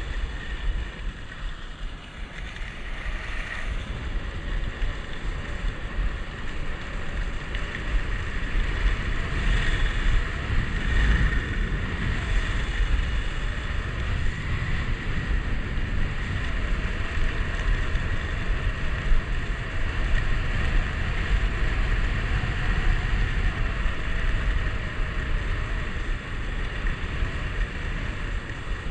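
Wind buffeting an action camera's microphone while skiing downhill, over the steady hiss and scrape of skis running on groomed snow.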